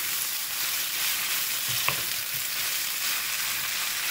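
Chicken, carrots and celery sizzling in hot oil in a wok over high heat, stirred with a wooden spatula, with a steady frying hiss and one sharp tap of the spatula on the pan about two seconds in.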